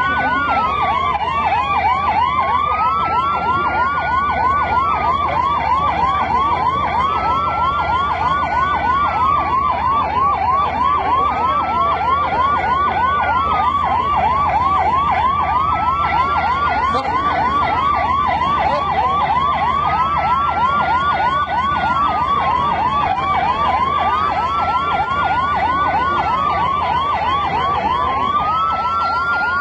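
Two emergency-vehicle sirens sounding together without a break: one a fast, repeating yelp, the other a slower wail that rises and falls about every four seconds.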